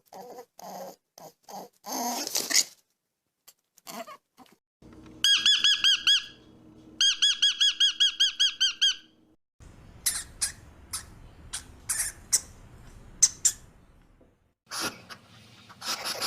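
A run of different animal calls: short squeaky calls, then a rapid series of repeated high chirps, then scattered squeaks and clicks.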